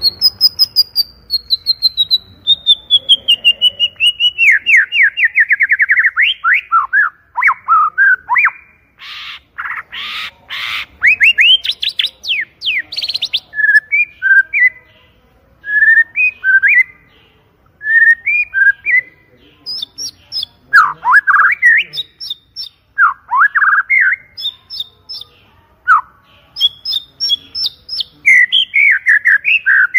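White-rumped shama (murai batu) singing loudly: a long, rapid run of notes slides down in pitch over the first several seconds, followed by a varied stream of whistled phrases, quick trills and chirps, with short pauses between them.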